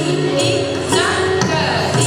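Indian classical dance music played over the stage speakers: held melodic notes with sharp percussive strikes, and singing over them.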